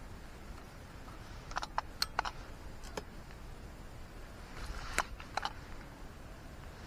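Handling noise: a few small sharp clicks and ticks in little clusters about a second and a half, three and five seconds in, with a brief rustle just before the loudest click near five seconds, over a faint steady hiss.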